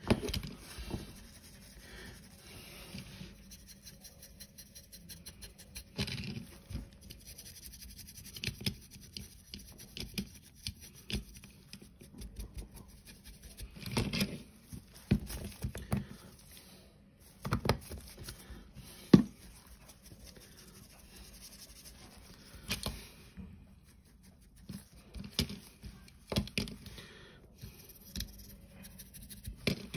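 Stiff paint brush scrubbing and scratching over a plastic model vehicle while dry-brushing rust paint, in short irregular strokes, with light clicks and knocks as the model is handled and set down; one sharp knock stands out about two-thirds of the way through.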